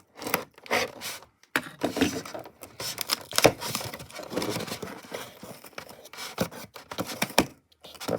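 A cardboard shipping box being opened by hand: irregular scraping, tearing and rustling of tape and cardboard, with a few sharp clicks and knocks.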